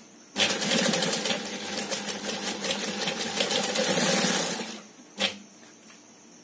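Industrial sewing machine stitching a fabric bag panel in a fast, rapid-stroke run of about four seconds, then stopping. A single short click follows about a second later.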